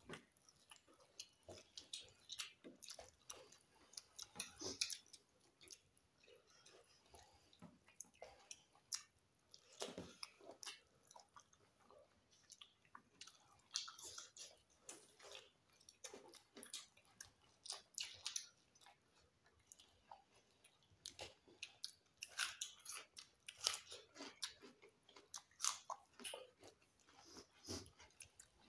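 Two people eating rice and chicken curry by hand close to the microphone: wet chewing and mouth smacks in many short, irregular clicks.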